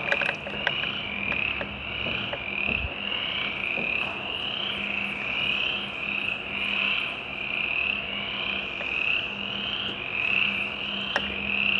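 A steady, high-pitched animal chorus that swells and fades about once a second, over a low, steady machine hum. A few light metallic clicks come near the start.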